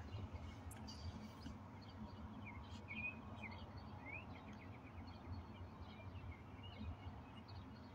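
Faint, short bird chirps, a few rising in pitch, over a low steady background hum.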